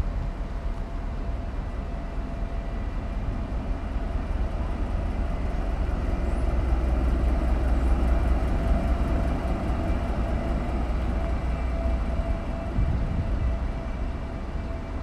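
DB class 261 (Voith Gravita 10 BB) diesel-hydraulic shunting locomotive running light past at close range: a steady low engine drone with a held whine over it, growing louder as it passes about halfway through and easing off as it moves away.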